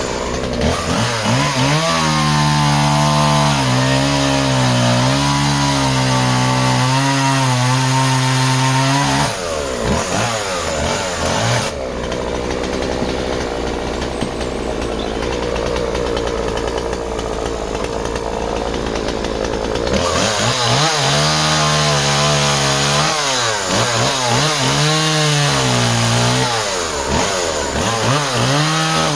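Two-stroke petrol chainsaw running at full throttle while cutting through timber, its engine note dropping and wavering under load. Partway through, the tone changes to a steadier, hissier stretch, then the wavering note under load returns.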